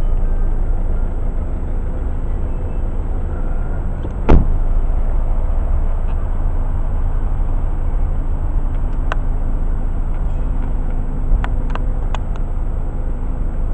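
Volvo V50's 1.6-litre four-cylinder diesel idling with a steady low rumble; a car door slams shut once about four seconds in, followed later by a few light clicks.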